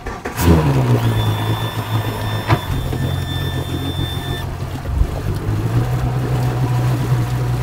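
Outboard motor running steadily at a low hum, with a steady high tone for about three seconds near the start and a single knock partway through.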